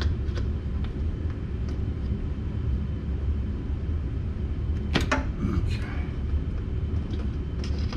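Spark plug wire boots being worked off and onto distributor cap terminals: one sharp click about five seconds in and a few lighter clicks, over a steady low rumble.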